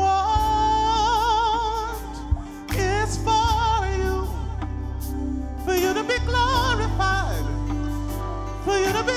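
Gospel worship song: sung phrases with a wide vibrato over a band with a steady low bass and regular drum hits.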